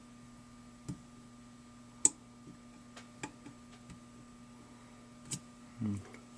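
Lock pick working the pin stacks of an American 1100 Edge padlock under tension: a handful of small, sharp metallic clicks spaced irregularly, the loudest about two seconds in, over a faint steady hum.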